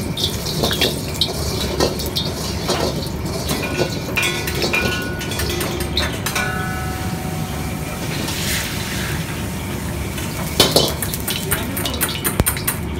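Carbon-steel wok being rinsed with water over a commercial wok burner: repeated metal clanks and scrapes with water swishing in the pan and a brief hiss about eight seconds in, over a steady low rumble from the burner. The louder knocks near the end come as the wok is handled with a bamboo wok brush.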